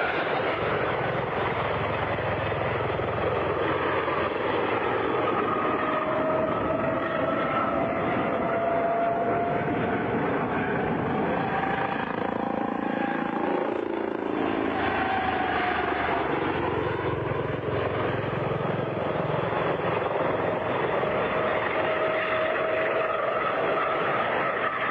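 Helicopter flying low passes and aerobatic manoeuvres: a steady rush of rotor and engine noise with a whine that slowly rises and falls in pitch.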